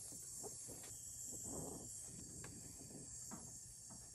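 Brazing torch flame hissing steadily against a copper refrigerant joint, with a few faint clicks.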